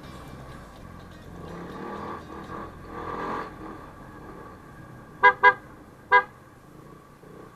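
Vehicle horn giving three short toots, two in quick succession and a third just under a second later, over steady traffic and engine noise.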